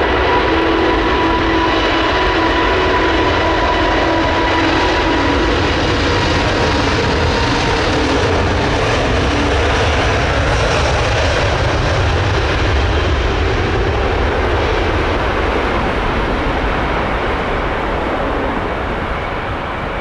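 Airbus A380's four jet engines running at high thrust on the takeoff roll: a loud, steady rumble with a whine that fades out over the first several seconds as the jet moves away.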